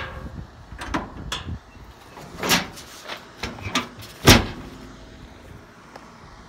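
Hood of a 1947 International KB2 pickup being lowered and shut: a series of metal clunks and knocks, the loudest a little over four seconds in as it slams closed.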